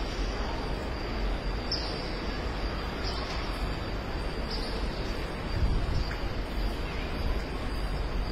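Steady open-air ambience with wind rumbling on the microphone, swelling a little past the middle. Three faint, high bird chirps come in the first half, about a second and a half apart.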